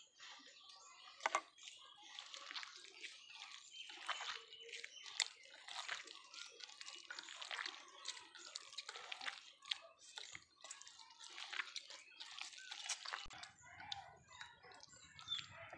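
Hand squishing and kneading mashed roasted eggplant with chopped coriander and chilies in a bowl: soft, irregular wet squelching and crackling, with a few sharper clicks.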